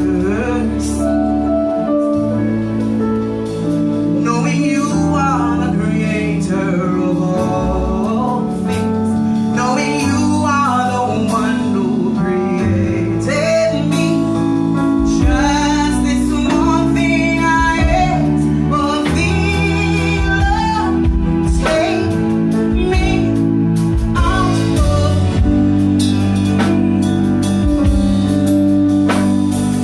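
A woman singing a gospel song live into an amplified microphone, with vibrato on held notes, backed by keyboards and a drum kit with steady cymbal strokes.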